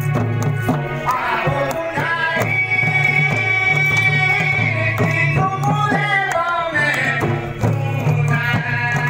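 Folk dance music: two-headed barrel drums beaten in a quick rhythm under a sung melody that rises and falls.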